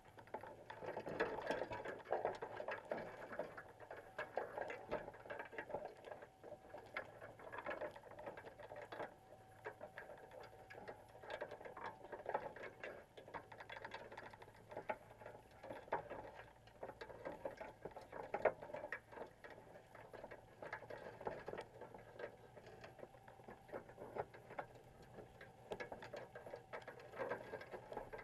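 Dense, irregular clicking and crackling underwater, muffled by a camera's waterproof housing, from Dungeness crabs clambering over the wire mesh of a crab pot and picking at the bait box. A faint steady hum runs underneath.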